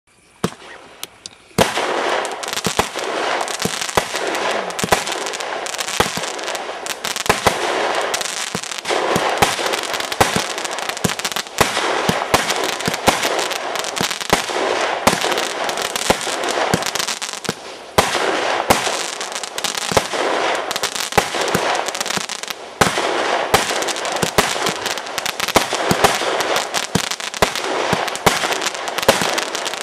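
Fireworks going off: a steady hiss thick with sharp crackling pops, starting about a second and a half in, with a few brief lulls.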